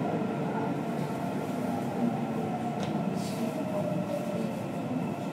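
Shinbundang Line subway train running through a tunnel, heard from inside its last car: a steady rumble with a whine that slowly falls in pitch, as when the train slows. A short hiss about three seconds in.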